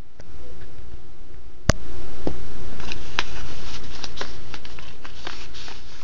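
Paper DVD mailer envelope being handled and unfolded by hand. A sharp click comes a little under two seconds in, then a run of short paper crackles and rustles.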